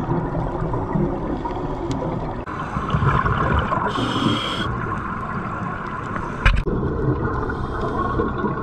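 Underwater sound of scuba diving: muffled water rumble with gurgling from divers' regulator bubbles, changing at edits between shots. A brief hiss about four seconds in and a sharp knock about six and a half seconds in.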